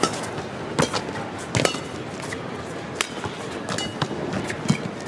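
Badminton rackets striking a shuttlecock back and forth in a rally: a series of sharp hits, roughly one a second, over the low noise of an arena crowd.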